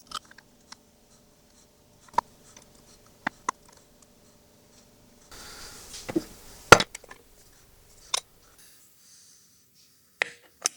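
Scattered clicks and knocks of metal grinder parts being handled and fitted, with a short scraping rustle a little past halfway that ends in the loudest knock.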